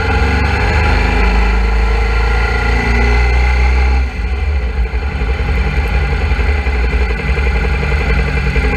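Suzuki V-Strom 650's V-twin engine running at low revs as the motorcycle rolls slowly. About four seconds in it dips briefly, then runs on lower and more pulsing, close to idle.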